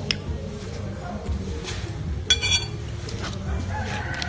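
Background music with a steady low beat. A little over two seconds in, a short ringing clink sounds, like a utensil striking a dish or glass.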